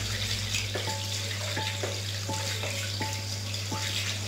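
Tap water running into a bathroom sink and splashing over hands being rubbed together under it. Soft background music with short single notes plays over it.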